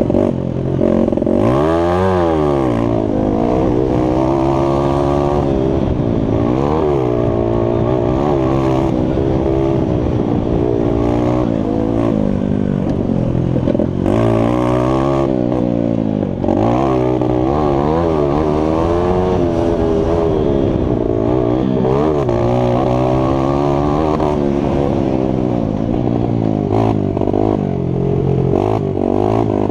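Onboard sound of a mini bike's small single-cylinder engine racing around a motocross track under hard throttle. The revs climb and drop again and again as the rider shifts and rolls off for corners, with brief dips in the engine sound twice around the middle.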